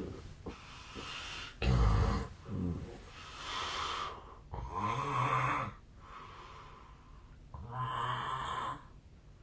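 A man snoring in his sleep: three heavy snores about three seconds apart, the loudest about two seconds in, with softer breaths between them.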